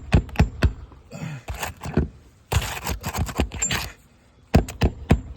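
Hammer driving a roofing nail through an asphalt shingle into the roof decking: a run of quick, sharp blows, a scraping rustle in the middle, then another run of quick blows near the end.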